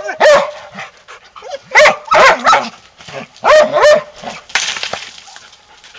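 A dog barking in three short bouts of two or three barks each, the last near four seconds in; after that only fainter sounds.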